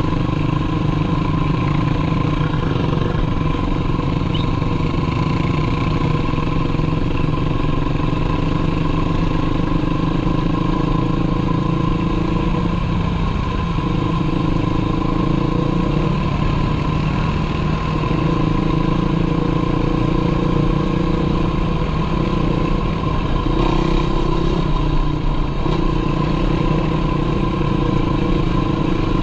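Sport quad (ATV) engine running at a steady trail pace, heard from the rider's seat, with brief dips in pitch a few times as the throttle eases and opens again.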